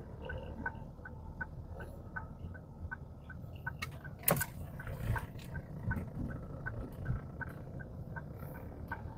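A car's turn-signal indicator ticking steadily inside the cabin, about two and a half clicks a second, with a low engine and road rumble beneath it, during a left turn. A single sharp click or knock stands out about four seconds in.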